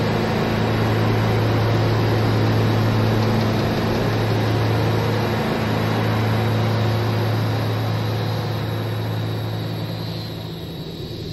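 Dark ambient film-score drone: a steady low hum under a wash of hiss-like noise, like a distant engine rumble, easing a little near the end.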